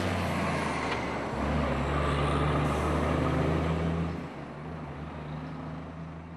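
Heavy truck driving past close by: diesel engine drone with tyre and road noise. It fades to a lower, more distant rumble about four seconds in.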